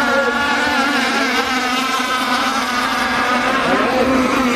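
Several radio-controlled racing catamarans running at full speed, their motors making a steady high buzz, with the pitch wavering up and down a little as the boats pass and turn.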